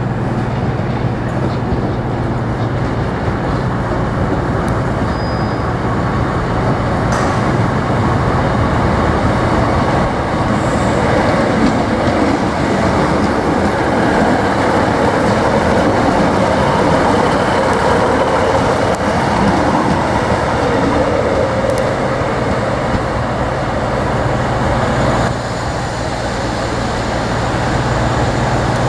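Class 156 Super Sprinter diesel multiple unit running in at low speed, the steady drone of its underfloor Cummins diesel engines over the rumble of its wheels, with some clatter over rail joints and points.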